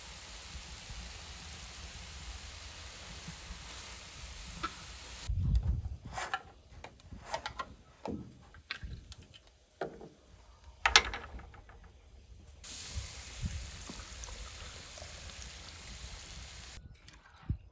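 A large pan of grated beetroot and carrot sizzling as tomato purée and then tomato juice are poured in. In between, a knife prying the metal lid off a glass jar gives clicks and knocks, with one loud sharp knock about eleven seconds in.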